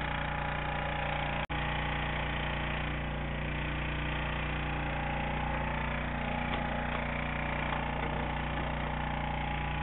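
A small engine running steadily at an even speed, its hum unchanging apart from a brief break about one and a half seconds in.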